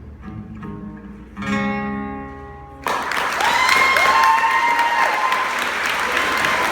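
Soft plucked acoustic guitar notes, then a louder strummed chord; about three seconds in, audience applause breaks out suddenly and keeps going, with long whistles over it.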